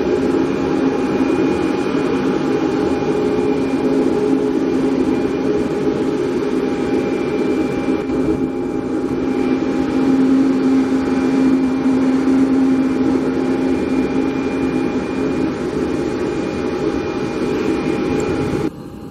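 Cessna 208 Caravan's single turboprop engine at takeoff power as the plane rolls and climbs away: a steady propeller drone with a constant whine over it. The sound drops sharply to a much lower level near the end.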